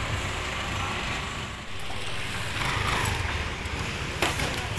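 Busy street traffic noise: motorcycle and vehicle engines running nearby, with a sharp click a little after four seconds in.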